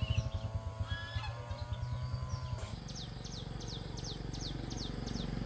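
Chickens calling, then from about two and a half seconds in a chick's high falling peeps, about three a second. A small engine runs underneath with a low, even putter.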